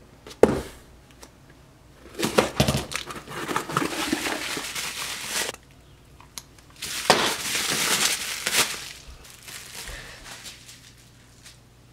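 Bubble wrap crinkling as it is handled, in two long stretches, with a single sharp click about half a second in and softer crinkling near the end.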